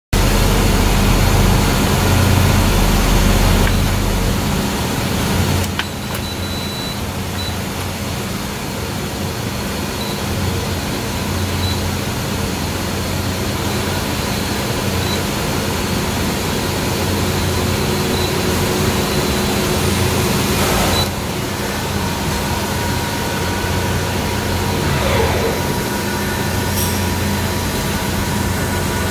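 Canon imageRUNNER 3225/3235/3245-series copier running with a steady mechanical hum from its fans and motors, broken by a short knock about two-thirds through.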